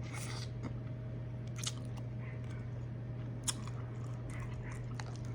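Close-miked chewing and lip smacking while eating seafood, with a few sharp wet smacks spread through. A steady low electrical hum runs underneath.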